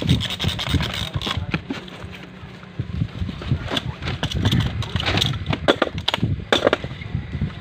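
A hand-operated strapping tensioner ratchets a strap tight around a cardboard mango carton, followed by a seal crimper clamping a metal seal onto the strap. The sound is a run of irregular sharp metallic clicks and snaps, busiest in the second half.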